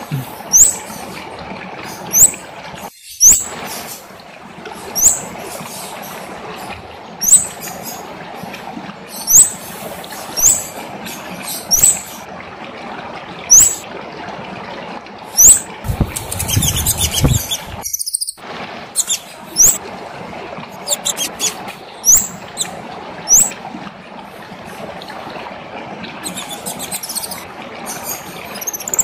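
Kemade songbird calling energetically: short, sharp, high chirps, each a quick pitch flick, repeated about once a second over a steady background hiss. About halfway through a brief noisy rustle breaks in.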